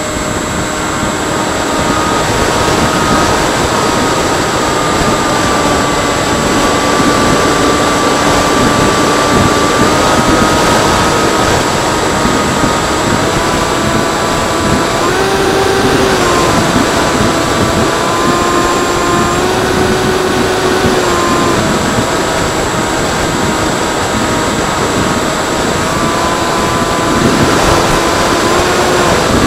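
Electric motor and propeller of a Freewing Seagull radio-control plane running in flight, the whine stepping up and down in pitch as the throttle changes, over a loud rush of wind.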